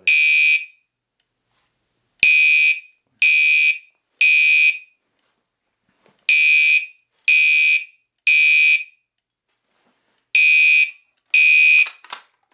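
Gentex Commander 3 fire-alarm horn sounding in the temporal-3 evacuation pattern: three loud, piercing beeps about a second apart, then a longer pause, repeated. It is on its high-volume setting. It cuts off after two beeps of the last group, followed by a few clicks from the pull station being handled.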